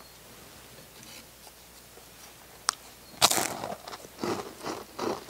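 A person biting into a crisp cookie about three seconds in and then chewing it, with loud, irregular crunches every few tenths of a second.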